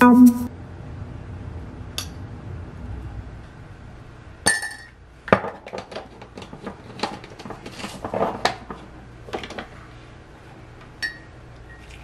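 A spoon, a coffee jar and a ceramic mug clinking and tapping while coffee is spooned into the mug: scattered light clicks, a few ringing briefly.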